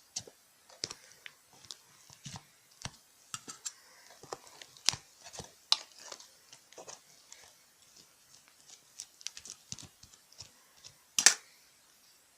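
Irregular light clicks and taps at an uneven pace, with one louder clack near the end.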